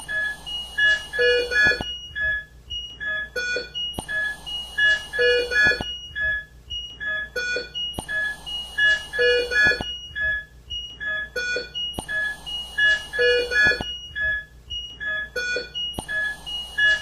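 Electronic beeping at several pitches, in a busy pattern that repeats about every four seconds, with clicks and short bursts of hiss.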